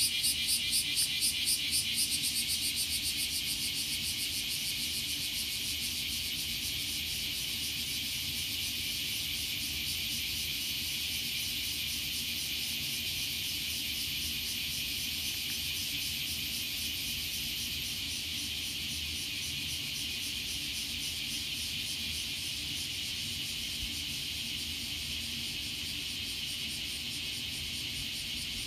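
Chorus of cicadas, a loud high buzz that pulses rapidly for the first couple of seconds and then holds steady. A low steady hum runs underneath.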